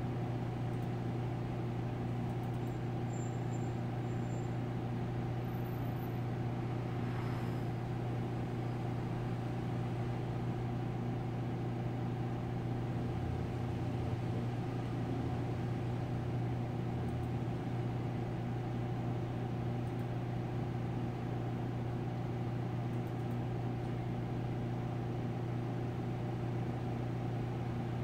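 Steady low mechanical hum with a faint hiss, unchanging in level and pitch.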